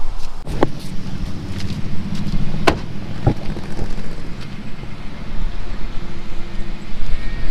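A motor vehicle's engine running steadily, with a few sharp knocks or clicks over it.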